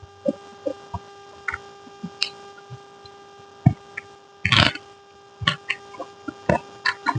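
A person eating close to the microphone: irregular small chewing clicks and mouth smacks, with one louder burst about four and a half seconds in, over a steady electrical hum.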